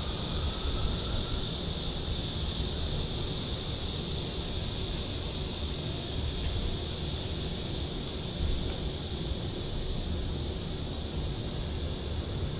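Insect chirping steadily: short high-pitched trills of a few pulses, repeating evenly a little faster than once a second, over a steady low background rumble.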